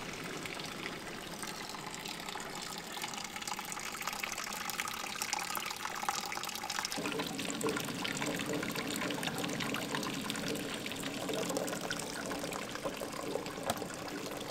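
Hot, nearly finished maple syrup pouring from an evaporator's ball valve into a wool filter. About seven seconds in the sound changes abruptly to sap boiling hard in the evaporator pans.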